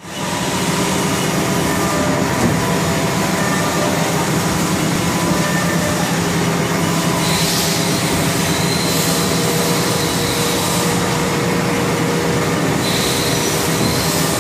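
Haas SL-30M CNC turning center running, with a steady low mechanical hum. A higher hiss comes in about halfway through and cuts in and out a few times while the tool turret is being indexed.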